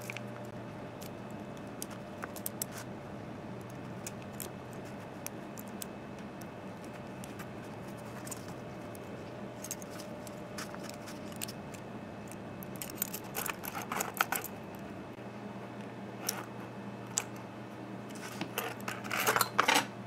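Small metallic clicks and rattles from a brass padlock cylinder being taken apart by hand, its plug worked out with a plug follower while a key on a ring jingles. There are louder bursts of clicking and rattling about two-thirds through and again near the end, over a steady low hum.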